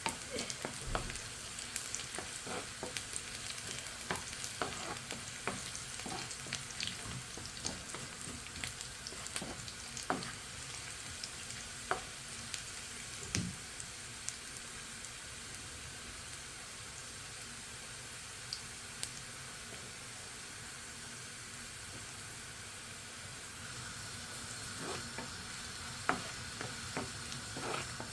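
A dal tempering (tarka) of spices, garlic and onion frying in hot ghee, a steady sizzle. A spoon clicks and scrapes against the pan now and then, more often in the first half and again near the end.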